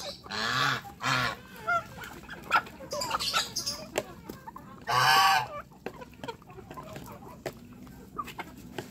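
A goose honks loudly several times, loudest just after the start and about five seconds in, among a feeding flock of poultry. Beaks tick and tap as the birds peck feed off concrete.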